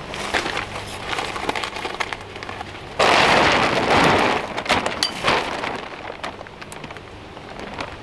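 Blue plastic tarp crinkling and rustling as it is pulled and hung on a pop-up canopy frame, with a loud burst of crackling about three seconds in that lasts over a second, then quieter scattered crinkles.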